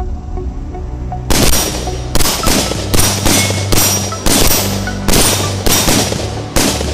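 Gunfire from long guns: about a dozen sharp shots in quick, uneven succession, starting about a second in, each with a short ringing tail, over steady background music.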